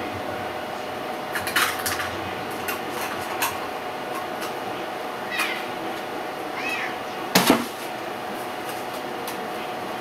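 Cats meowing twice, short calls about halfway through, while a utensil clinks and scrapes against a plate as wet cat food is dished out; the loudest clatter comes near the end. A steady hum runs underneath.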